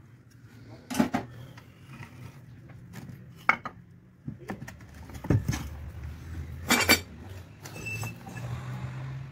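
Sharp metallic clinks and knocks, four or five of them a second or two apart, from metal tools and the parts of an electric water-pump motor being handled while it is worked on, over a low steady hum.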